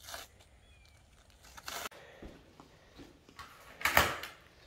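Cardboard shipping boxes being handled: a few brief rustling and scraping noises, the loudest about four seconds in.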